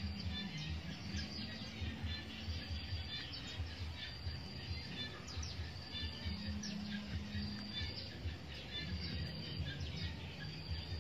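Birds chirping and calling repeatedly over a low rumble.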